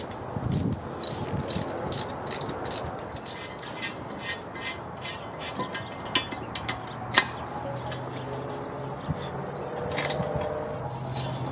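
Ratchet wrench clicking in quick, even strokes as the oxygen sensor is screwed into a stainless exhaust header, with a sharper metal click about seven seconds in.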